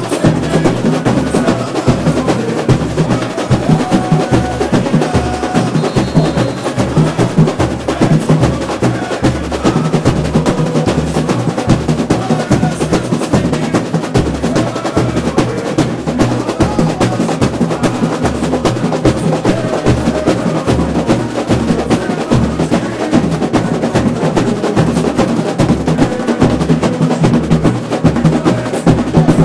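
Samba school bateria playing a continuous samba groove up close: a regular deep pulse of surdo bass drums under a dense rolling layer of caixa snare drums and other stick-played drums.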